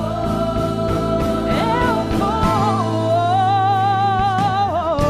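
Christian worship song: singing voices hold long, wavering notes over instrumental accompaniment.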